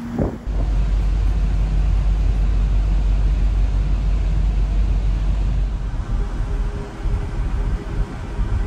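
Steady low rumble of wind buffeting the microphone on the open deck of a large ferry under way, with the ship's running noise underneath; it starts abruptly about half a second in, and a faint steady hum joins about six seconds in.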